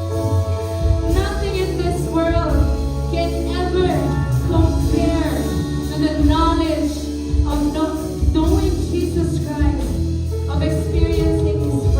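Live worship band playing a contemporary worship song, with a woman singing lead over sustained bass and keyboard chords.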